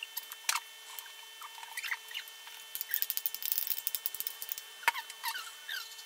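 Metal spoons scraping cream out of a ceramic mixing bowl and clinking on a glass baking dish, with a quick run of scrapes and taps about three seconds in and a few short squeaks.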